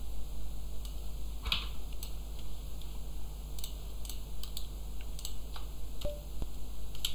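Computer keyboard keys clicking in a few irregular, scattered keystrokes over a low steady hum.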